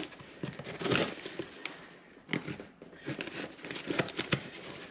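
A knife slitting packing tape on a small cardboard box, and the box being worked open: short, irregular scrapes, rustles and crinkles of tape and cardboard.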